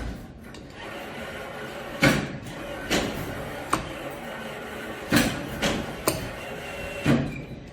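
Claw machine being played: about seven sharp knocks and clacks spaced irregularly, over a steady arcade background.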